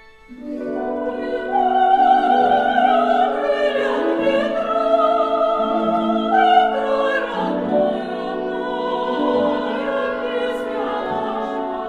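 Operatic choral music with orchestra: voices singing long, wavering held notes over sustained accompaniment, coming in loudly about half a second in after a quiet held chord.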